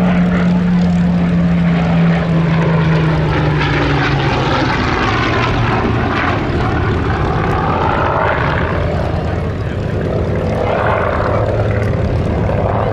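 Rolls-Royce Merlin-engined propeller aircraft flying past, a loud steady drone. Its engine note drops in pitch over the first few seconds as it passes, then runs on at the lower pitch, with a sweeping whoosh in the higher tones.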